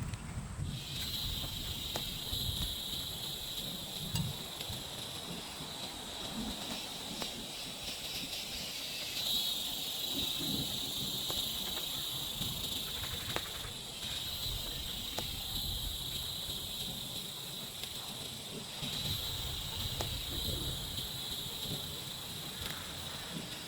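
A steady, high-pitched buzzing chorus of forest insects that dips briefly a few times, over low, irregular rustling and knocks.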